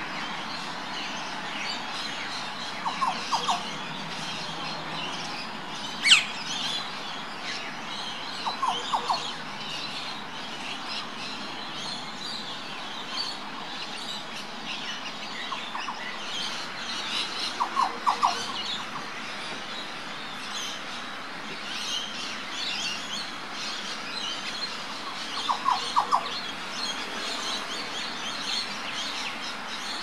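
Green oriole (Australasian yellow oriole) calling in short groups of three or four quick notes, repeated every few seconds, over steady chirping of other birds. One sharp, loud whistle sweeps up and down about six seconds in.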